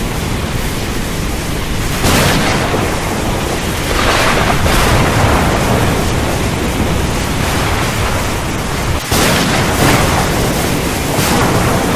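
Storm: heavy rain, with rumbling thunder and several sudden cracks and crashes, about 2, 4 and 9 to 11 seconds in.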